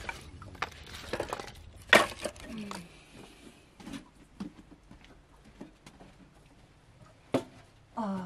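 Split firewood knocking and clattering in a metal basin as it is lifted, carried and set down, with a sharp knock about two seconds in and another near the end.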